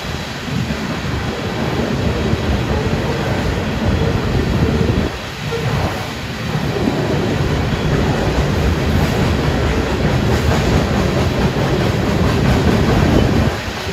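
Loaded coal hopper cars of a freight train rolling past, their steel wheels running on the rails in a steady noise that dips briefly about five seconds in.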